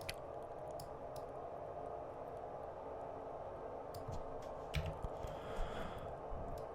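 A handful of sparse computer mouse and keyboard clicks over a steady low background hum.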